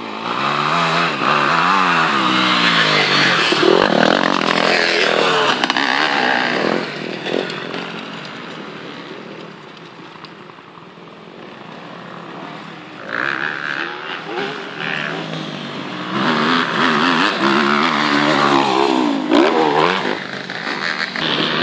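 Motocross dirt bike engines revving as bikes ride past on a dirt track, the pitch rising and falling with the throttle. The sound fades for a few seconds around the middle, then builds again as more bikes come through.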